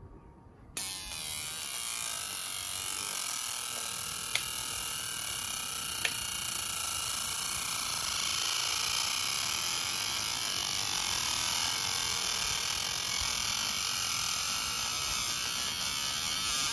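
Laser marking machine engraving a copper-clad PCB: a steady, high-pitched buzzing hiss that starts about a second in, with two brief clicks partway through, and cuts off suddenly near the end.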